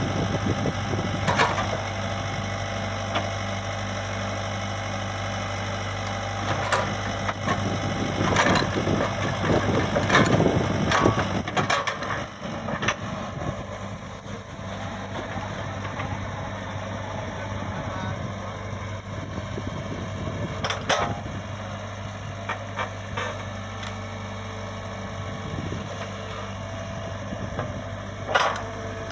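Komatsu PC75UU excavator's diesel engine running steadily, with scattered sharp knocks and a louder, busier stretch about ten seconds in.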